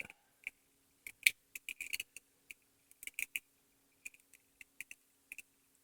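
Irregular small clicks and ticks of thin plastic as snap clips on a Roomba bumper-sensor housing are pried off their hooks and the parts are handled.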